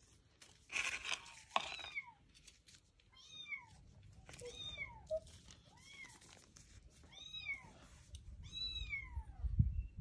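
Month-old kittens meowing over and over, high calls that rise and fall, about one a second. A short rustle comes near the start and a low thump near the end.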